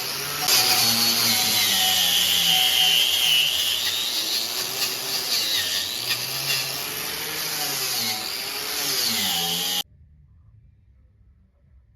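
Electric power tool running under varying load, its motor pitch dipping and rising. It cuts off suddenly a little before the end, leaving near silence.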